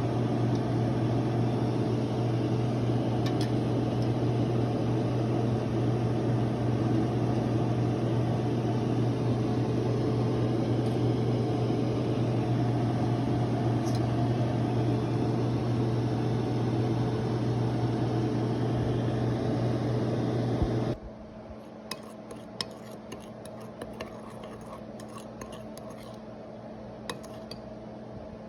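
Steady hum of a running kitchen appliance motor, which cuts off abruptly about 21 seconds in. After that come a few light clinks of kitchenware.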